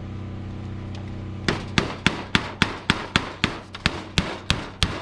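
Hammer driving a nail, about a dozen quick, evenly spaced blows starting about a second and a half in, over a steady low hum.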